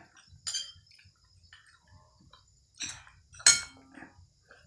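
Small eating noises from a person eating by hand at a table: a few short sharp clicks and smacks, the loudest about three and a half seconds in.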